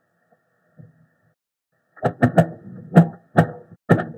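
Popcorn popping: after a near-silent pause, single sharp pops start about halfway through and come in quick, irregular succession.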